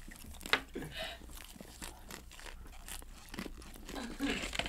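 People chewing hard taco shells filled with cornstarch packing peanuts: faint, scattered crunches.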